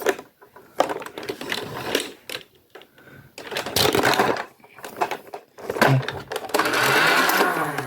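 Battery-powered Nerf blaster motor whirring and clicking in short bursts as the blaster is emptied, with a longer, louder run near the end.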